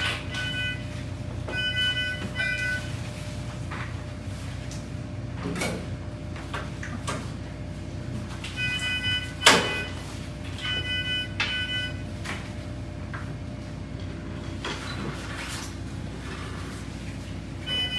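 Electronic beeping from the anesthesia patient monitor, sounding as short groups of beeps every few seconds, an alarm that the monitor had already been sounding during the procedure. Several knocks and clatters of handling, the loudest about halfway through, over a steady low hum.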